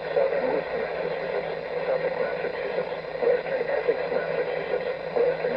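Radio reception of an Emergency Alert System flood watch broadcast: a steady, hissy, band-limited static with the broadcast voice buried and muffled beneath it.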